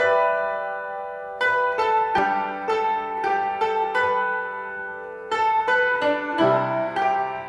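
Background music of plucked-string notes that ring and fade, with a low held tone joining near the end.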